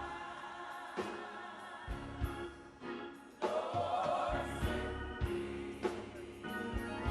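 Gospel music: a choir singing with instrumental accompaniment and drum hits.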